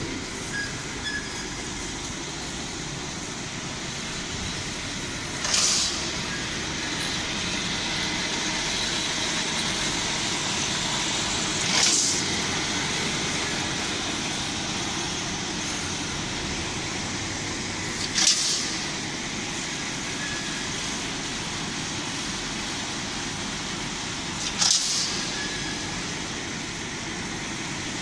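Wire mesh welding machine running with a steady mechanical noise, broken four times by a short hiss, about every six seconds.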